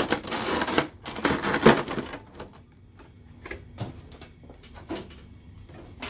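A stiff clear plastic packaging tray crackling and creaking as a figure is worked out of it. Then a few light scattered clicks and taps.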